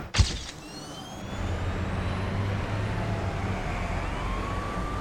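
Outdoor city ambience: a steady low hum of distant traffic with some wind, broken just after the start by one sharp click. From about four seconds in, a faint high tone rises and then holds.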